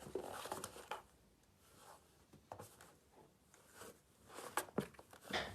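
Scattered rustling with a few sharp light clicks, the loudest near the start and toward the end.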